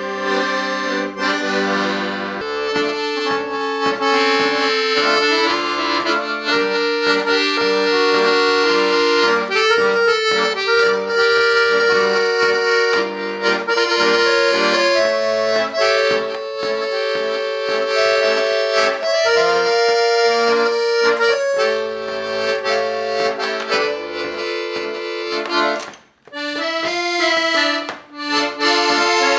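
Accordion playing a melody of held notes over sustained chords, with a short break near the end.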